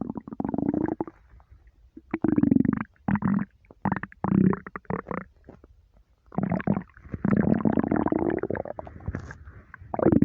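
A person's empty stomach rumbling: deep, long rumbles in several irregular runs, some sliding up and down in pitch, with a pause of about a second near the start and another just past the middle.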